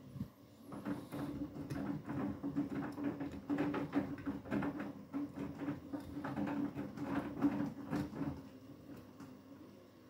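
Beko WTK104121W front-loading washing machine's drum tumbling a wet load in rinse water. The motor hums steadily while the clothes slosh and splash against the glass; the tumbling starts about a second in and stops near the end.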